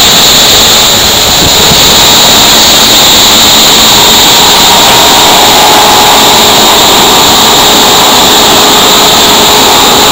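Large belt-conveyor drive running: electric motor, MagnaDrive magnetic coupling and gearbox make a loud, steady mechanical noise. Faint thin whines come in about halfway through.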